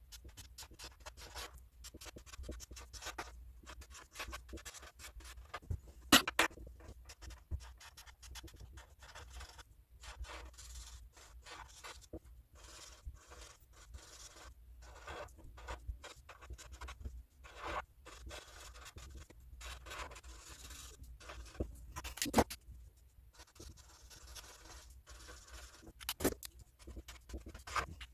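Felt-tip whiteboard marker scratching across paper in many short, irregular strokes as large letters are drawn and filled in, with a couple of louder knocks about 6 and 22 seconds in.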